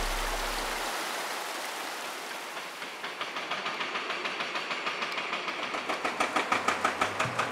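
Rushing mountain stream fading out, then from about three seconds in the rapid, rhythmic knocking of an excavator-mounted hydraulic rock breaker fading in and growing louder.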